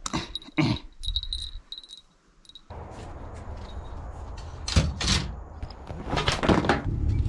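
Knocks and clatter of a fishing rod and gear being handled in a ute's checker-plate steel tray as its canvas canopy is pulled down, with a few sharp knocks in the second half over a steady low rumble.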